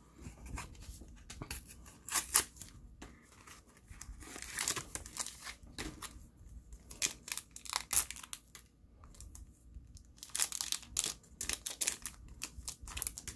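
Plastic wrapper of a Bakugan trading-card booster pack crinkling and tearing as it is ripped open by hand, in irregular bursts of rustles and short rips.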